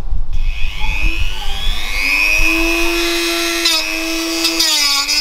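Dremel rotary tool fitted with a grinding stone spinning up with a rising whine, then running steadily at high speed. Its pitch dips briefly twice in the second half as it is worked against the SC-Project SC1-R silencer's welded end cap to free the dB killer.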